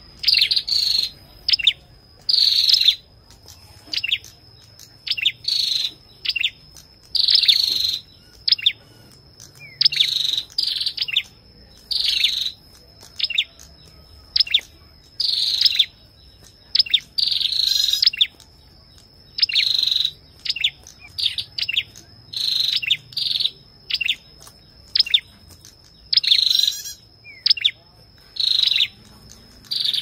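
Ashy tailorbird calling: a long series of short, sharp, high-pitched calls, about one to two a second, some coming in quick runs. A thin, steady high tone sits behind them.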